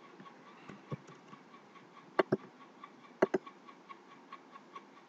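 Computer mouse clicking: a soft click about a second in, then two quick double-clicks about a second apart.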